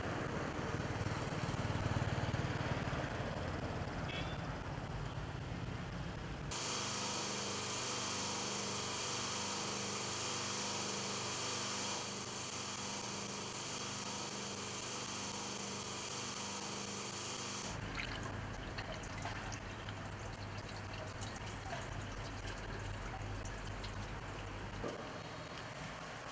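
Low street rumble at first. About a quarter of the way in it gives way to a steady hiss of liquid running from oil drums, with a faint hum under it. About two-thirds of the way through it changes to a lower hum with a few light clicks and knocks.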